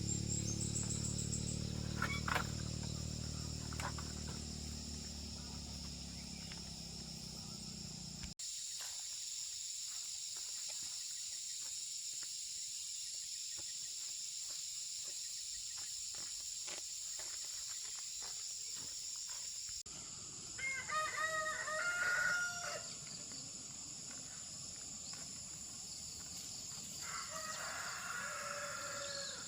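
Steady high-pitched insect chorus, with a rooster crowing twice: once about twenty seconds in and again near the end. A low rumble under the insects in the first third stops abruptly.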